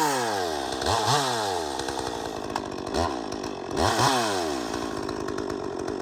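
Top-handle chainsaw engine running on a test run after repair, revved in three quick throttle blips that each rise and fall in pitch.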